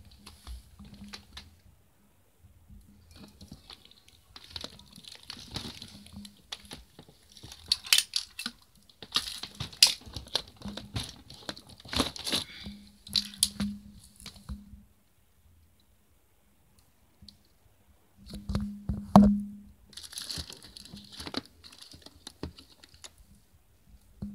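Clear plastic bags crinkling and rustling, with clicks and clinks of metal pocket lighters, as a bin full of bagged vintage lighters is rummaged through. It comes in stretches with a quiet pause of a few seconds, and the sharpest clatter comes about nineteen seconds in.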